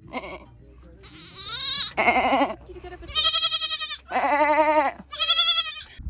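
An animal bleating: about five wavering, quavering calls, the first rising in pitch, each lasting half a second to a second, with the loudest in the middle of the run.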